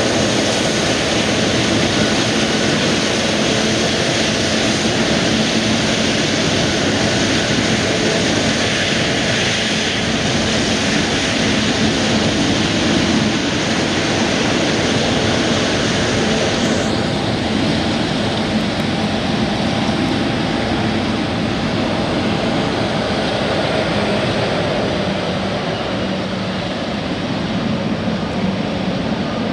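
Jet airliner engines running, a loud, steady rushing noise with a faint high whine through it. The upper part of the sound shifts slightly just past halfway.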